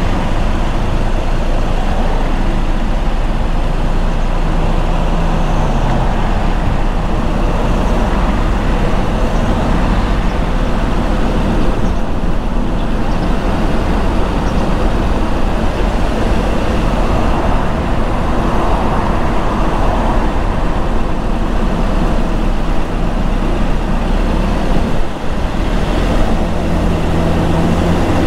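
A car driving at steady speed: constant tyre and road noise over a low engine hum, with a short falling engine note about five seconds in.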